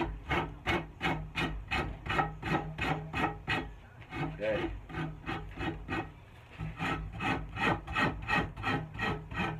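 Hand rasp scraping over a wooden axe handle in quick, even strokes, about three a second, as the palm swell is rounded and made steeper. The strokes pause briefly about four seconds in and again around six seconds.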